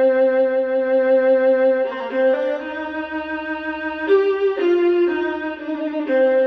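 Music: a slow melody of long held violin notes, the pitch changing a few times.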